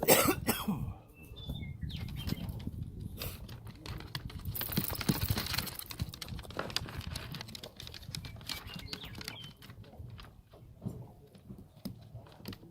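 Handling noise from rawhide lacing being pulled through holes in a drum hide: rustling and flapping of the hide and string with scattered clicks and taps, busiest about five seconds in.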